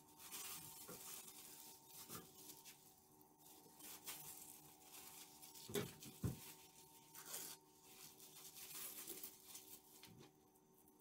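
Faint crinkling of a plastic bag squeezed by hand as a piping bag, with two soft knocks about six seconds in, over a faint steady hum.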